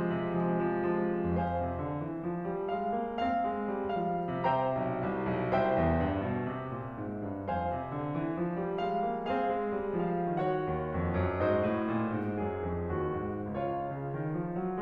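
Solo piano music in classical style, with a bass line that rises and falls in repeating waves under held chords.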